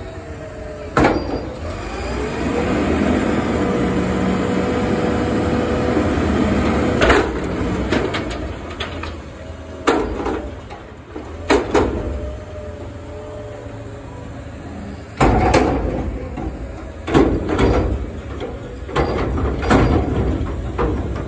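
Front-loader garbage truck's hydraulic forks lifting a commercial dumpster over the cab, the engine revved up and the hydraulics whining steadily for several seconds. Then a string of loud metal bangs and clanks as the dumpster is emptied and lowered back to the ground, the heaviest bang about two thirds of the way through.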